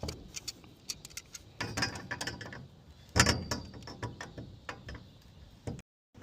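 Irregular clicks, taps and knocks of hand work with tools and parts, with a louder clatter about three seconds in.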